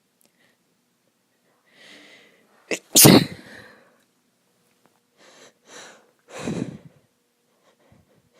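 A woman's loud, unstifled sneeze about three seconds in, preceded by a sharp intake of breath; she is sneezing from illness. A few quieter breathy sounds follow.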